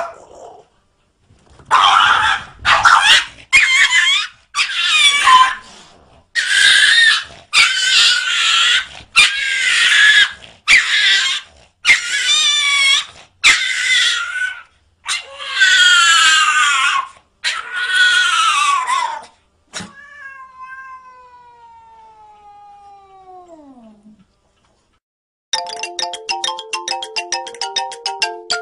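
A cat yowling and caterwauling over and over in loud, drawn-out calls that bend in pitch. After that comes a single falling tone, then a short, quick jingle near the end.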